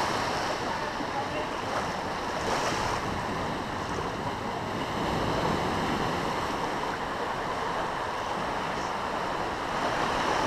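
Ocean surf washing over rocks into a shallow rock pool: a steady rush of breaking water and foam that swells and eases a little as each wave comes through.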